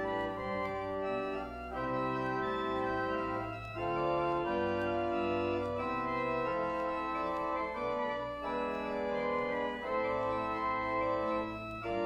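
Organ playing the postlude that closes a church service: held chords moving every second or so over a low bass line.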